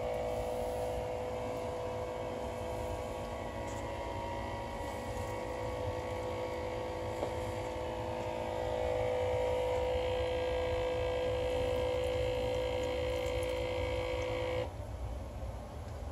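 Small electric pump of a 5-gallon water dispenser running with a steady hum, then cutting off abruptly near the end.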